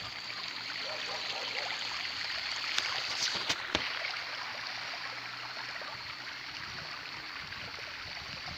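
Steady rush of flowing floodwater, with a few brief sharp clicks about three to four seconds in.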